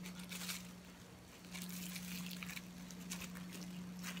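Plastic cling film crinkling in a few short bursts as hands peel and handle it around a chilled sheet of butter, over a faint steady hum.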